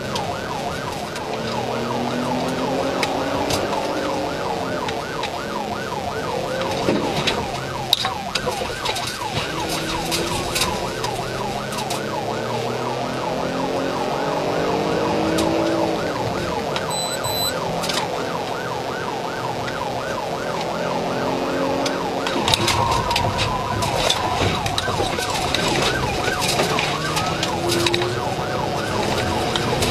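Police siren in a fast yelp, rising and falling several times a second without pause, over a patrol car engine revving up and easing off as the car chases.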